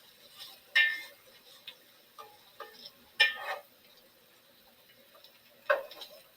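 A utensil clinking against a cooking pan while onions are stirred, three sharp strikes about two and a half seconds apart with a few lighter ticks between.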